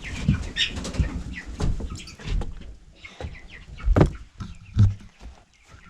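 Young meat king chickens peeping and clucking, with scattered knocks and two louder thumps about four and five seconds in.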